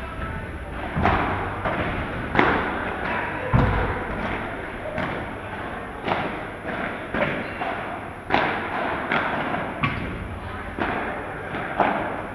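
Padel ball hit back and forth with solid paddle rackets, bouncing off the court and glass walls. The hits are sharp pops at an irregular pace of about one a second, echoing in a large hall, with one heavier, deeper thud a few seconds in.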